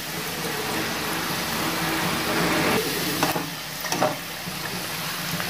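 Somas deep-frying in hot oil, a steady sizzle, with two brief knocks about three and four seconds in.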